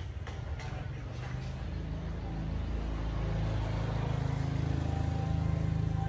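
A motor vehicle's engine rumbling low, growing steadily louder.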